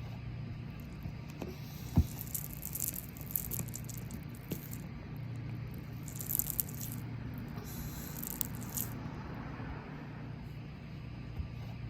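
Oreo cookies crunching and crumbling as they are crushed in a hand: scattered crackles and snaps, the sharpest about two seconds in, over a steady low hum.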